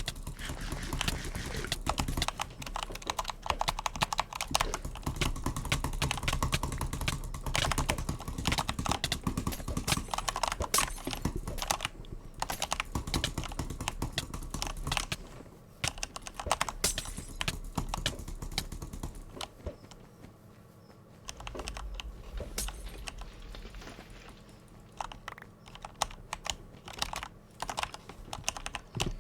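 Butterfly clicker (a balisong-style fidget toy) being flipped and fidgeted, its hinged parts clacking in rapid, irregular runs of clicks. The clicks are dense at first and become sparser, with short pauses, in the second half.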